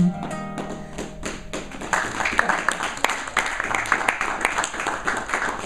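The closing chord of a song on an acoustic guitar rings and fades over about a second, then a small audience claps, the claps thinning out near the end.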